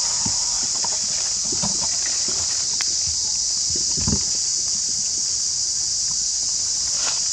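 Steady high-pitched drone of insects chirring, with soft rustling and light footfalls in dry leaves and grass; a slightly louder rustle about four seconds in.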